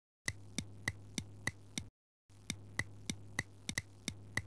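Clock ticking sound effect, about three even ticks a second over a low steady hum, breaking off briefly about two seconds in.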